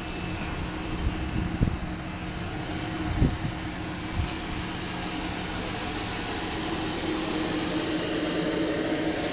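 Steady fan hum from an InterCity train, its FS E.402A electric locomotive and coaches running their cooling and ventilation fans, growing a little louder near the end. A few soft thumps in the first few seconds.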